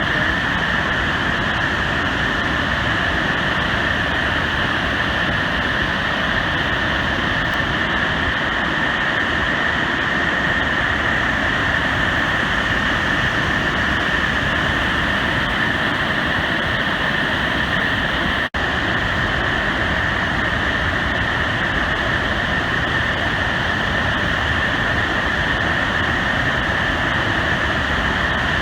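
Steady roar of the Great Falls of the Passaic River, a large waterfall heard close up as an even wall of rushing water. It cuts out for an instant about 18 seconds in.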